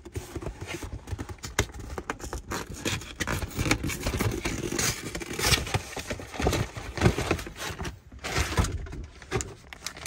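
Handling noise from unpacking a new cabin air filter: a paper parts bag rustling and crinkling, with irregular scrapes, clicks and knocks as the filter is pulled out and handled.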